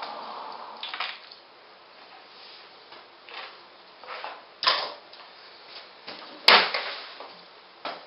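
Metal bench clamps and their hardware being handled on a perforated worktable: scattered knocks and clicks, the loudest a sharp clack about six and a half seconds in, over the steady hiss of a shop fan.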